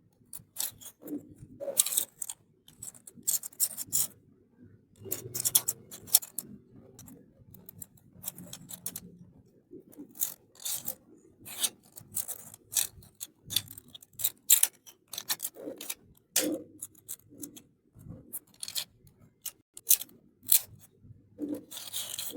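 Irregular small clicks, taps and rubbing of hands unpacking and handling a miniature plastic toy kitchen set and its packaging.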